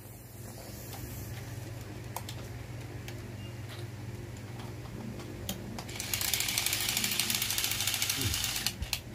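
Remote-control fighting robot toy's small plastic gear motors whirring with a rapid ratcheting click, starting about six seconds in and running for about three seconds. A steady low hum and a few light clicks come before it.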